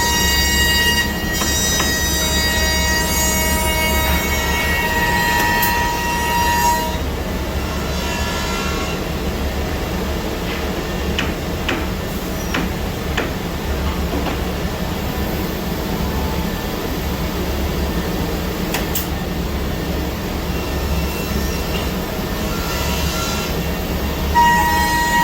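Rover A Smart 5-axis CNC router machining wood: a high spindle whine for the first several seconds, then a rougher cutting noise with scattered clicks, and the whine comes back near the end.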